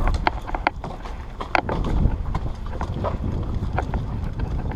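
Wind rumbling on the microphone, with irregular clicks and knocks as airsoft gear and a rifle are handled and moved.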